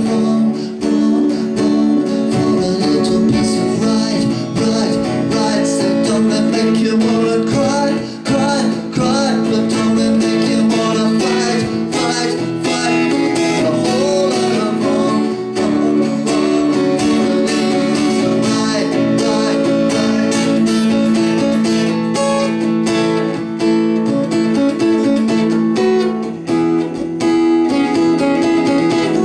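Acoustic guitar strummed in a live song performance, with a voice singing over it in the first part.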